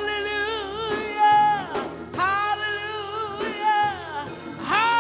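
Gospel worship song: a singing voice holding long, wavering notes in phrases over sustained instrumental accompaniment.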